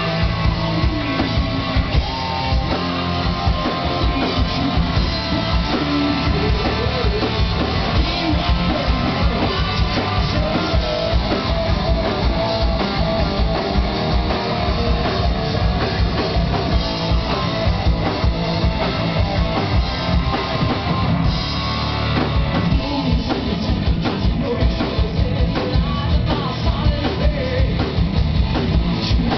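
Rock band playing live, with electric guitars and a drum kit, heard loud from among the audience in a small club.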